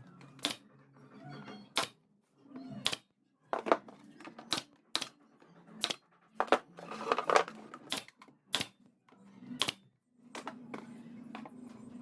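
Wooden picture-frame parts knocking and clicking as they are fitted together: about a dozen sharp, separate knocks at uneven intervals.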